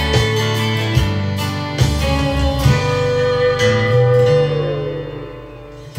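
Instrumental passage of a country song: acoustic guitar notes over a steady bass line. A long held note bends downward and fades, and the music drops quieter just before the end.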